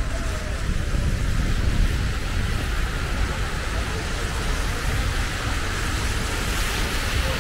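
Steady city street noise while riding a bicycle: a low rumble and even hiss of traffic and wind on the microphone.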